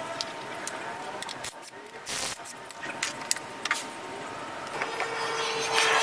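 Light metallic clinks and rattles of parts and tools being handled as a scooter's rear wheel is taken off for a drum brake shoe change. Near the end a steady rushing noise with a low hum grows louder.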